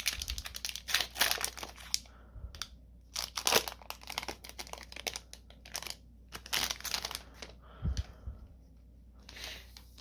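Plastic wrapper of a Magic: The Gathering booster pack being torn open and crinkled in irregular bursts of crackling, with quieter pauses between.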